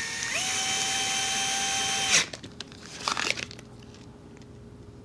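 Small electric screwdriver motor spinning up to a steady whine that holds for about two seconds, then stops suddenly, followed by a few short clicks about a second later.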